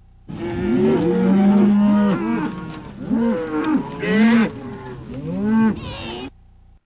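Several cows mooing in a string of overlapping calls, bending in pitch, for about six seconds.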